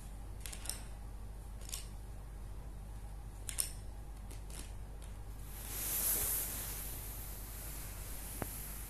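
Scattered light clicks and taps of coloured pencils and a plastic pencil box being handled on a table, with a brief rustle about six seconds in and a sharp tick near the end, over a faint steady hum.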